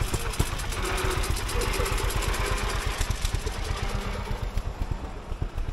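Veteran car's engine chugging with a fast, even beat as the car drives past, its sound fading near the end.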